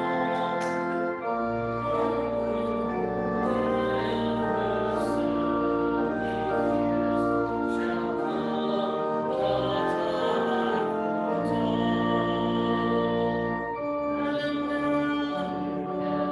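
Church organ playing slow, sustained chords, with deep bass pedal notes entering and dropping out.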